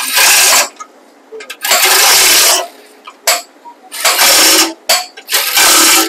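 Dongcheng electric impact wrench running in four short bursts of about a second or less, with a couple of brief blips between, as it tightens the tine-bar bolts on a baler pickup reel.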